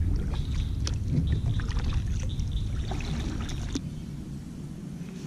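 Kayak paddle strokes splashing in the water, with scattered knocks and clicks of the paddle and gear against the kayak. It goes quieter after about four seconds.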